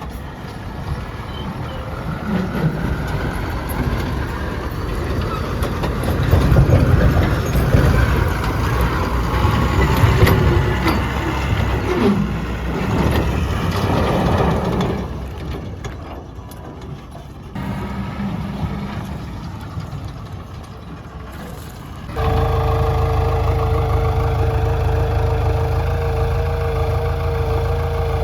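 Heavy diesel engines of a backhoe loader and tipper truck working during mud loading, the engine note rising and falling under load. About 22 seconds in, the sound changes abruptly to a louder, steady engine run with a held whine.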